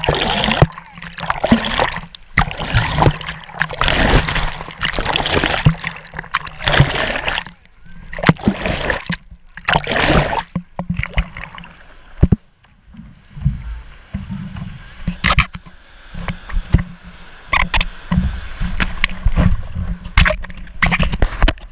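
Seawater splashing and rushing over an action camera as it is dunked through the surf, loud for about the first ten seconds. After that come quieter water lapping and scattered knocks of water against the camera and surfboard.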